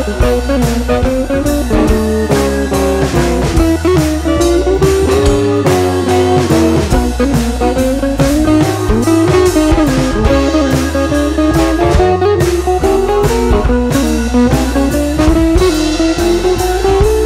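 Background music: guitar-led instrumental with a drum kit keeping a steady beat.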